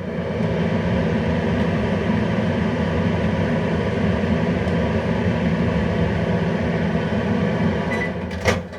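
Small microwave oven running with a steady hum for about eight seconds. Near the end a short beep sounds and a sharp click follows, and the hum stops.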